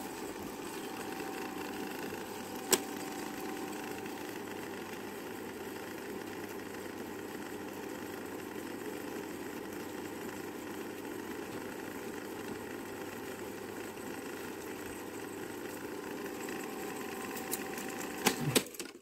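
Revue 30 b film projector running, a steady mechanical whir from its motor and film transport as the reel turns. One sharp click comes about three seconds in, and near the end a few knocks are followed by the sound stopping.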